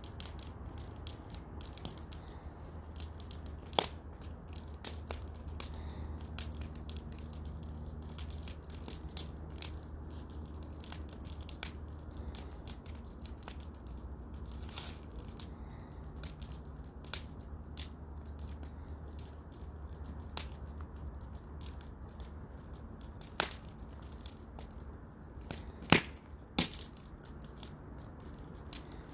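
Wood fire in a fire pit crackling and popping, with irregular sharp pops, a few much louder ones about four seconds in and again near the end, over a steady low rumble.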